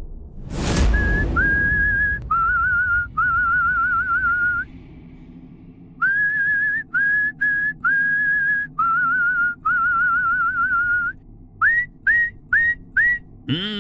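A sudden swoosh about half a second in, then a whistled tune: held notes with a slight warble in short phrases, ending with four quick upward-sliding whistles.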